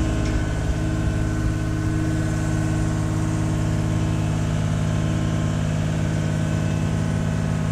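Engine of an aerial boom lift running at a steady speed while its platform is moved: a constant low drone.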